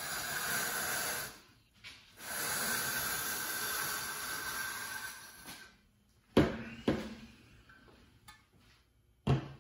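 Amcraft red V-groove tool's blades shearing a groove through fibreglass duct board as it is pushed along a layout square: a steady, scraping hiss with a short break about a second in, lasting some five seconds. A few sharp knocks follow as the tool and square are handled.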